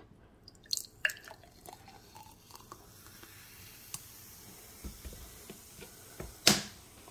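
Sprite poured into a glass with a few small clinks and splashes, then fizzing in the glass with a faint steady hiss. A single sharp knock near the end.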